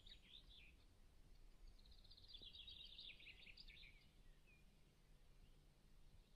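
Faint bird song over quiet outdoor ambience: a short call at the start, then a rapid run of chirps lasting about two seconds.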